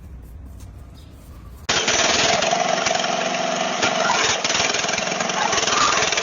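A faint low rumble, then about a second and a half in, loud, dense machine noise from construction work starts abruptly and runs on steadily.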